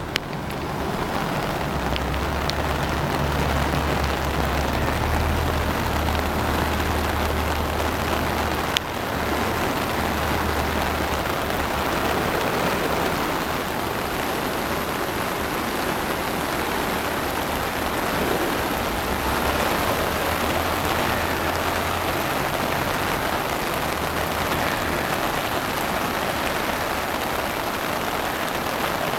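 Heavy rain and rushing floodwater: a steady, dense hiss, with a low rumble coming and going underneath and a single sharp click about nine seconds in.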